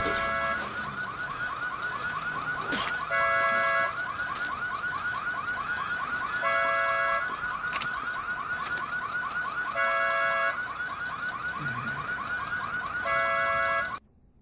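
Car alarm going off after a crash: a fast warbling siren of rapid rising chirps, with a horn-like honk about every three seconds. A couple of sharp knocks are heard, and the alarm cuts off suddenly near the end.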